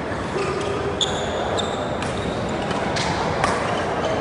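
Badminton rally on an indoor court: a handful of sharp racket hits and footfalls, some with short squeaks of shoes on the court floor, over the steady background noise of the hall.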